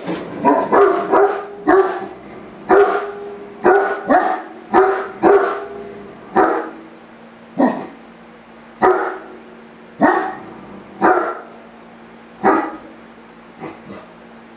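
Great Dane barking repeatedly while left alone: short deep barks in quick bunches at first, then single barks about once every second or so. The barking is a sign of the dog's separation distress with its owner away.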